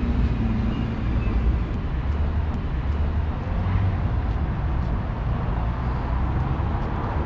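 Street ambience with a steady low rumble of road traffic.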